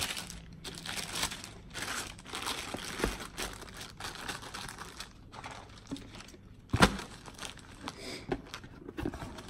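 Clear plastic packaging bags crinkling and rustling as a bagged electronics unit and its parts are handled and packed into a cardboard box with a moulded pulp tray. There is one sharp knock about two-thirds of the way through.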